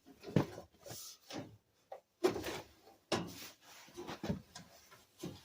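Irregular clatter of about a dozen short knocks, clunks and scrapes as parts and hardware are handled and moved about.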